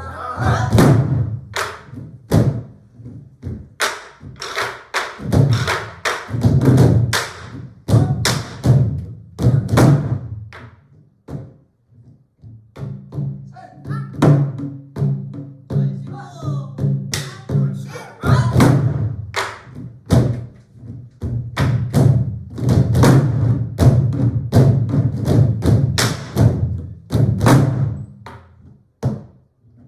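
Ensemble of Korean buk barrel drums played together, deep strikes on the drumheads mixed with sharp cracking stick hits in a lively, irregular rhythm. The playing breaks off briefly about eleven seconds in, then resumes.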